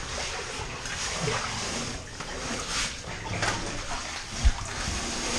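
Water splashing and sloshing as a caver wades and crawls through a flooded low-airspace cave passage (a duck). A single sharp thump about four and a half seconds in is the loudest sound.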